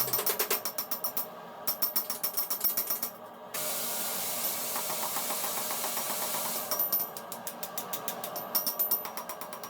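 Mechanical power hammer striking hot steel in a fast, even rhythm of several blows a second. The blows stop for about three seconds of steady hiss, then start again.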